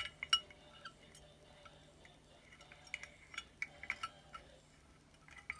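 Plastic Gunpla wing parts clicking and clinking against each other and the glass wall as they are worked into place inside a glass bottle: scattered light, sharp ticks, bunched at the start and again about three to four and a half seconds in.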